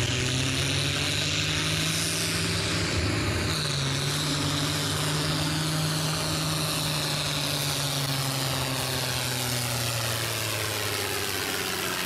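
John Deere 4430's six-cylinder turbo diesel working under full load as the tractor drags a pulling sled. Its steady engine note sinks gradually in pitch through the pull, with a faint high whine above it that also falls.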